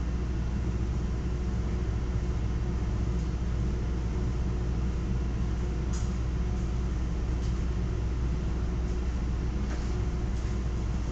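Steady low machine hum of room equipment, with a few faint clicks about six and ten seconds in.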